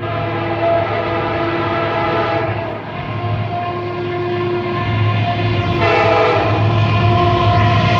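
Diesel freight locomotive's air horn blowing a chord for a grade crossing as the train approaches, in long blasts with a short break about three seconds in, over the low rumble of the engine. It grows louder as the train nears.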